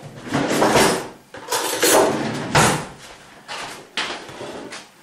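Kitchen utensils and dishes being handled: several scraping and clattering stretches with a couple of sharp knocks.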